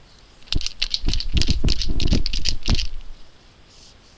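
Paint pen shaken hard for about two and a half seconds, a quick rattling inside the barrel, done to mix the water-based paint before the nib is pressed down to prime it.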